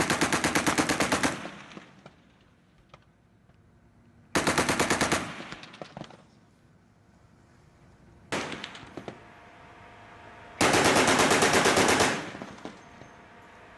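Mk 38 25 mm naval gun, an M242 Bushmaster chain gun, firing four bursts on automatic: a burst of about a second and a half, a shorter one a few seconds later, a very brief one, then another of about a second and a half near the end.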